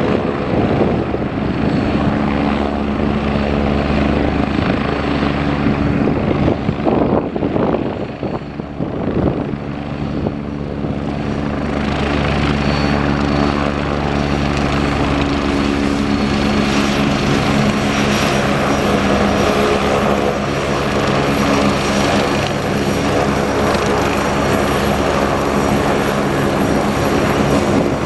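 Agusta A109E Power twin-turbine helicopter taxiing on the ground, its turbines and main rotor running steadily, briefly a little quieter about eight seconds in.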